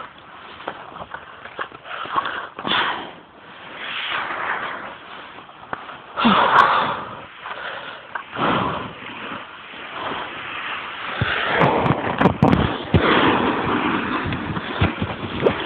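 Irregular rushing noise that swells and fades, from skis sliding over snow and wind on a phone's microphone, with rubbing and a few sharp knocks in the last few seconds as the phone is handled.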